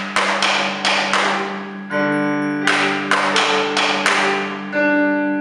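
Live experimental noise music: sharp, hissy struck hits about three a second, each fading quickly, over a steady low drone. Twice, around two seconds in and near the end, the hits give way to a sustained chord-like tone.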